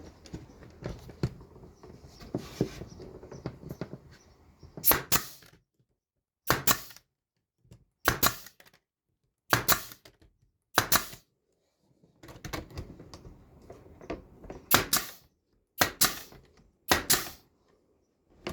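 Nail gun firing nails into wood, about eight separate sharp shots one to two seconds apart, after some faint handling clatter at the start.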